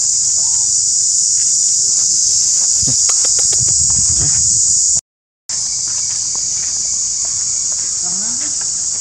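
Steady, loud, high-pitched drone of insects in the forest canopy, with a burst of dry-leaf rustling and crackling underfoot about three to four and a half seconds in. The sound cuts out for half a second about five seconds in, then the insect drone resumes.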